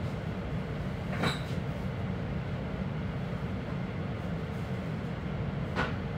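Steady low rumble of a regional express train running along the track, heard from inside the carriage, with two short sharp clicks about four and a half seconds apart.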